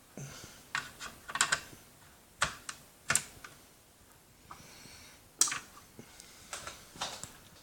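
Irregular sharp clicks and knocks of hard plastic being handled: an Amiga 600 computer case and its RAM expansion parts, some clicks coming in quick pairs.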